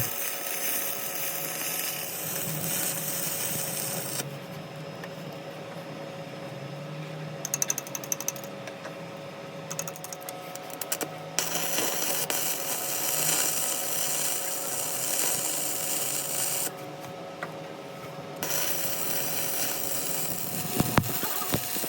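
A workshop power tool running steadily with a constant hum, hiss and scattered clicks and rattles, during machining work on a countershaft gear. The sound changes abruptly a few times, about four seconds in, near the middle and again near the end.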